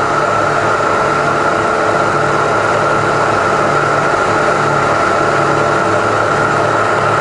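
Rebuilt Bridgeport milling machine's variable-speed head running in high range, the spindle turning with the quill power feed engaged: a steady whine over a low, evenly pulsing hum. It runs smoothly.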